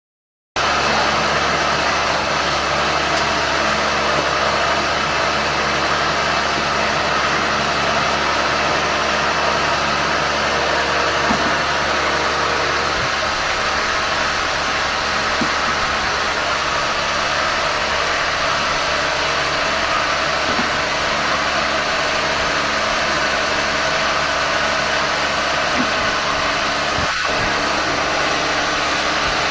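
Cotton candy machine running steadily on a production test: an even motor hum under a constant rushing noise, starting about half a second in.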